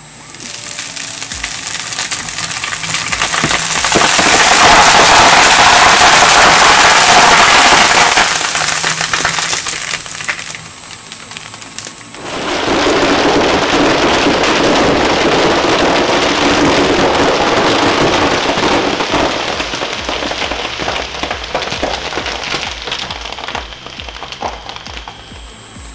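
Twin-shaft shredder tearing through a bead-filled plush cushion: a loud, dense crackling hiss as the foam beads are crushed and scattered by the blades. It comes in two long spells, with a short lull about ten seconds in.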